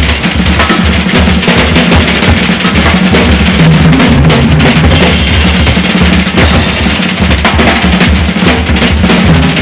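Jazz-fusion recording led by drums: busy, dense drum-kit playing from two drummers, with snare, bass drum and cymbals, over a low bass line.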